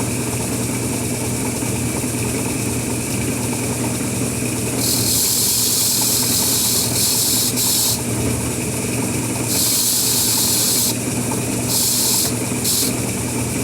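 Several bursts of hissing spray onto a lathe chuck during cleaning, from a fraction of a second to about two seconds each, over a steady mechanical hum.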